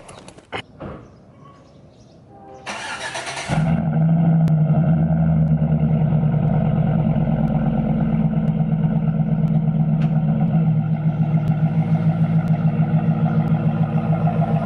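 A few knocks, then a truck engine cranked by the starter for about a second. It catches and settles into a steady idle.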